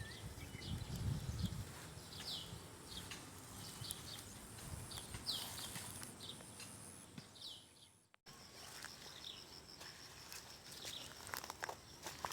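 Outdoor ambience with a bird calling over and over in short curved high notes, roughly once or twice a second, over a low rumble. The sound drops out for an instant about eight seconds in, after which the calls are fainter and a thin steady high tone and a few clicks are heard.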